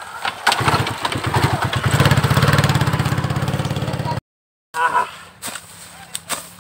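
Small motorcycle engine kick-started, catching about half a second in and revving up with fast, even firing pulses as the bike pulls away; it cuts off abruptly about four seconds in. A few sharp chopping strikes follow.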